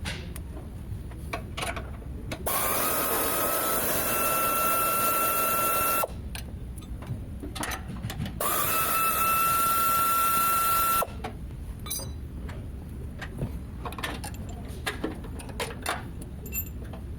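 Power tool run twice for about three seconds each. Each time it spins up into a steady whine with a hiss behind it, then cuts off suddenly. Between and after the runs come light clicks and clinks of tools and metal parts.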